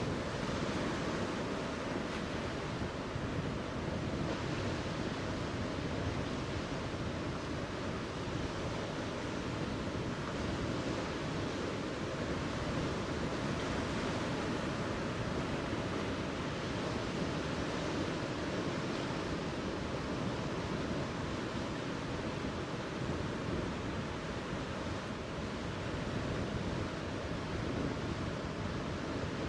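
Steady wash of sea surf against a rocky reef, a continuous noise without distinct calls or knocks.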